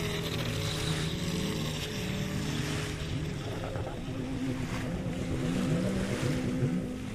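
Wltoys WL913 brushless RC speedboat running on a 4S lipo, its motor tone rising and falling in pitch as the throttle changes.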